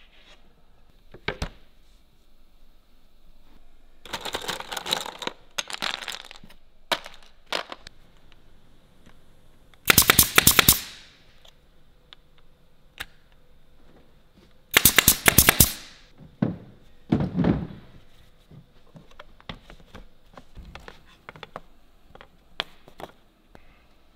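Pneumatic nail gun firing into particle board in two quick bursts of several shots, about ten seconds in and again about five seconds later. Between the bursts come scraping and knocks of the boards being handled.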